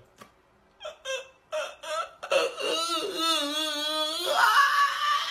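A person's voice making a few short sounds, then one long wavering wail lasting about two seconds, followed by a breathy hiss.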